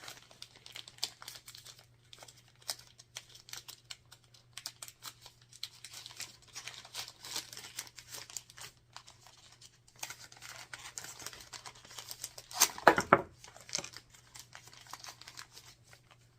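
Plastic bag crinkling and rustling as a diamond painting toolkit is worked out of it, with small clicks of the plastic tools. A louder burst of crinkling comes near the end.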